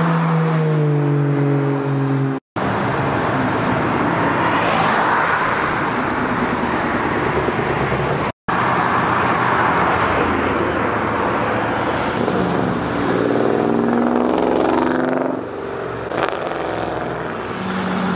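Sports-car exhausts, loud, as cars accelerate past one after another with engines revving hard. The engine note falls at the start, then climbs quickly in pitch again later on.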